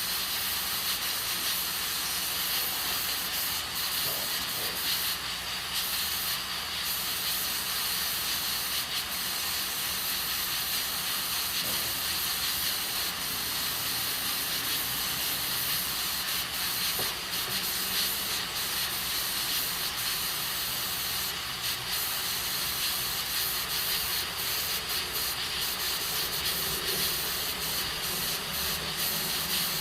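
Aluminium pressure cooker hissing steadily as steam escapes from its weighted valve while beans cook on a gas stove: a constant, even hiss with faint ticks now and then.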